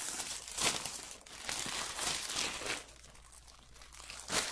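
Clear plastic bag crinkling and rustling as it is pulled off a large cardboard board game box. It comes in a run of bursts that dies down about three seconds in, with one more crinkle near the end.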